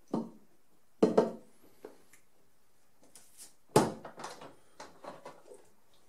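Plastic knocks and clicks from handling a film developing tank and a plastic measuring beaker during the wash: two sharp knocks, one about a second in and one just before four seconds as the tank's lid is pressed on, then a few lighter clicks as the tank is lifted.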